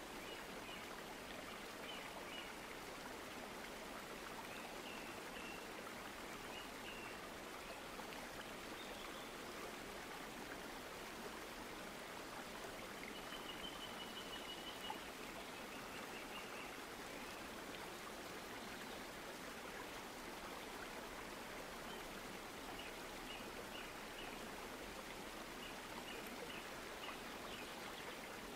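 A steady, even rushing hiss with faint, short high chirps coming in small clusters now and then.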